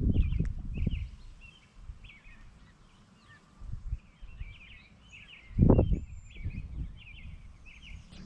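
Small birds chirping over and over, with bursts of low rumble on the microphone near the start and a louder one a little past halfway.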